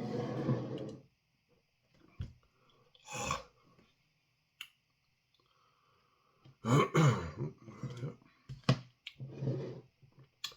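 A man's throat clearing and grunting in several short bursts, the longest stretch starting about two-thirds of the way through, with a faint click in between.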